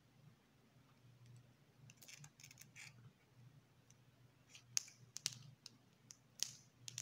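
Chocolate bar's foil wrapper crinkling in the hands in scattered sharp crackles, sparse at first and louder and closer together from about halfway through, over a faint low hum.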